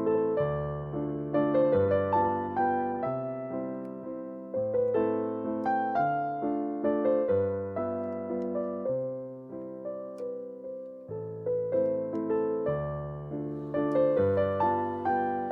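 Background piano music: gentle melody over sustained bass chords, each note struck and fading.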